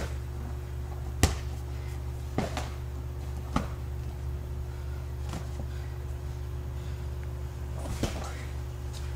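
Boxing gloves landing punches in sparring: about five sharp smacks at uneven intervals, the loudest about a second in, over a steady low hum.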